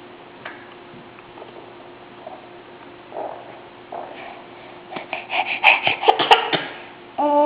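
A baby making one of his weird noises: a quick run of about eight short, noisy bursts, loud, about five seconds in, after a few faint small sounds.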